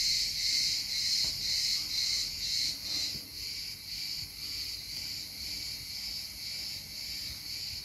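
Insects chirring steadily in the background, a high-pitched sound pulsing about three times a second.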